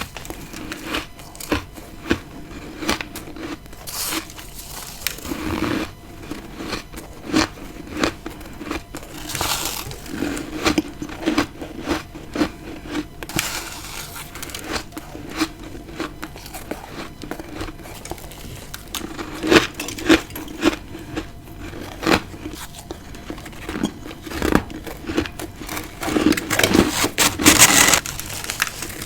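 Close-up biting and chewing of freezer frost, with many sharp crunching cracks. There are denser bursts of crunching about nine seconds in and again near the end.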